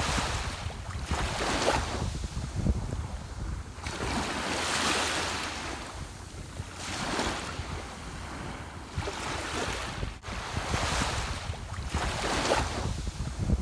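Ocean waves breaking and washing in, surging and falling back every couple of seconds over a steady low rumble.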